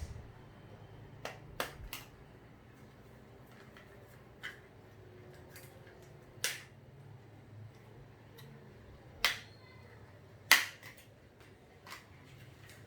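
Scattered short, sharp clicks and snaps, about eight of them at uneven intervals with the loudest near the end, as a laptop RAM module is handled and worked in its slot.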